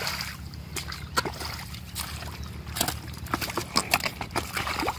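Wet squelches and short sharp splats of thick mud as a mud-covered fish is handled and put into a bucket, coming thicker near the end.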